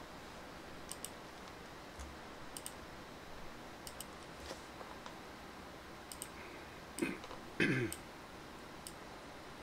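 Computer mouse clicks, a dozen or so scattered short clicks, several in quick pairs, as orders are placed in trading software. A brief louder sound that falls in pitch comes about seven and a half seconds in.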